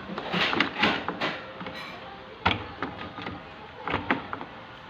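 Long-nose pliers clamping a small wire clip on a washing-machine sensor, with rattling handling noise at first and then a few sharp clicks.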